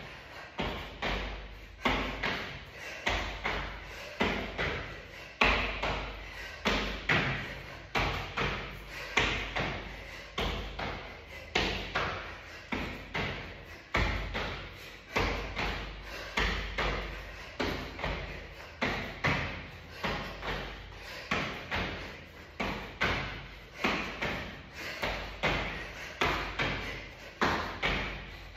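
Feet striking the floor over and over during an exercise: a steady run of thuds, about three every two seconds.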